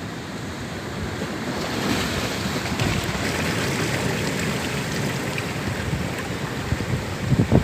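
Sea surf breaking and washing up the shore in a steady rushing wash that swells and eases, with wind buffeting the microphone in low thumps near the end.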